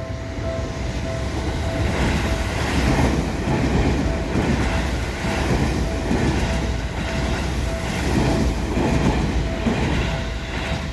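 A Seibu Ikebukuro Line train passing over a level crossing, its wheels clattering in a rhythmic run over the rail joints and fading away near the end. Over it the crossing's warning bell keeps up its steady, evenly pulsed ringing.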